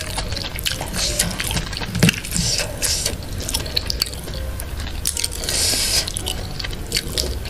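Close-miked eating by hand: fingers squeezing and mixing rice and fried food on a takeaway food tray, with many small wet clicks and crackles. A longer rustling rub comes about halfway through.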